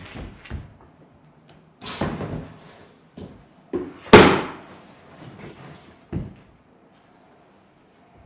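A performer's body thudding and scuffing on a wooden stage floor as he rolls and drops down: a series of about eight thumps, the loudest about four seconds in, each ringing briefly in a small wood-panelled room.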